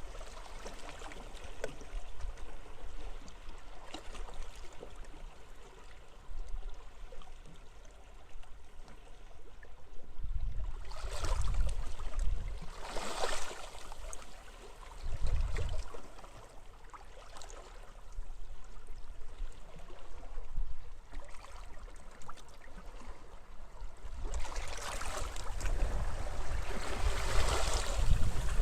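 Waves washing onto a beach with wind, a steady rush that swells in surges about ten seconds in, again a few seconds later, and builds near the end, with low gusty rumbles under some of the surges.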